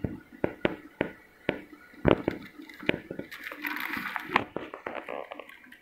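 Clear plastic bag crinkling around a computer keyboard as fingers handle it through the plastic: a run of sharp crackles, with a longer rustle about three to four seconds in.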